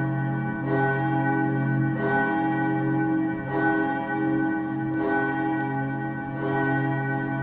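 A steel church bell ringing, struck at a steady pace about once every second and a half. Its tone rings on between strokes.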